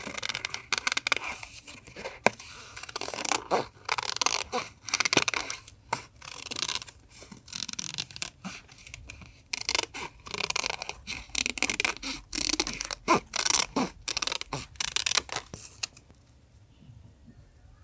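Paper being handled for a journal collage: irregular bursts of rustling, scraping and snipping with sharp clicks, going quiet about sixteen seconds in.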